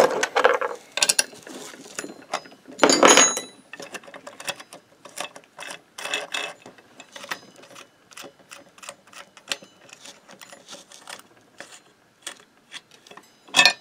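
Irregular metallic clicks and rattles from a Motobécane AV 89 moped variator being handled and turned by hand, with a louder clatter about 3 s in.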